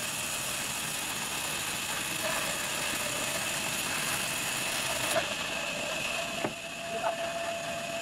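Log band saw running and cutting through a log: a steady whirring hiss with a constant high tone. About six and a half seconds in it gets quieter, giving way to a steady lower hum with a few sharp knocks.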